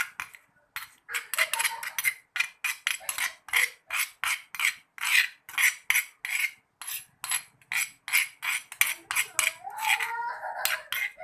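A kitchen utensil knocking and scraping in a bowl in a steady rhythm, about three strokes a second, as garlic and ginger for a cough remedy are worked.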